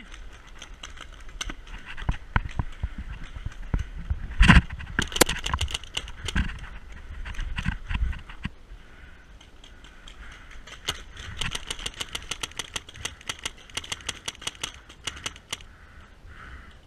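Paintball markers firing: scattered shots and short quick strings, with one much louder crack about four and a half seconds in. From about eleven seconds a long rapid string follows, several shots a second, ending near fifteen seconds.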